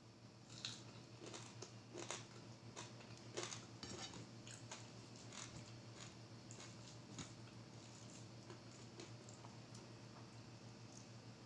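Faint close-up chewing of fried salmon, with scattered small mouth clicks that are busiest in the first few seconds and then thin out.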